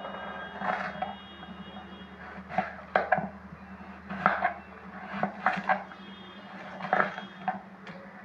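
Kitchen knife slicing a red onion, the blade knocking on a red plastic board in about a dozen irregular cuts, some in quick pairs. A steady low hum runs underneath.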